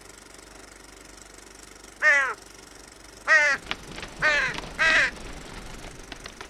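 Crows cawing: four harsh caws, each dropping in pitch at the end, starting about two seconds in, over a faint steady hiss.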